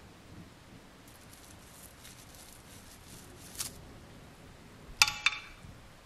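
Faint toothbrush bristles scrubbing a small part in soapy water, then about five seconds in two sharp clinks a quarter second apart, each ringing briefly: a hard part knocking against the glass Pyrex dish.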